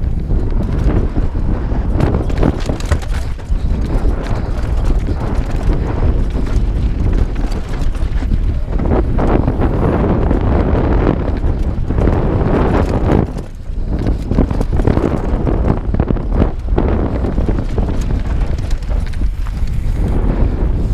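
Wind buffeting the microphone of a helmet-mounted GoPro while a Santa Cruz Bronson mountain bike is ridden over rough singletrack. Tyre noise runs throughout, with a constant chatter of quick irregular knocks and rattles from the bike.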